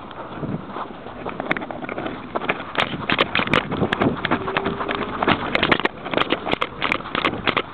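Dog-worn camera on a Jack Russell terrier moving through snow: many irregular crunching footfalls, with knocks and rubbing as fur and snow brush against the camera.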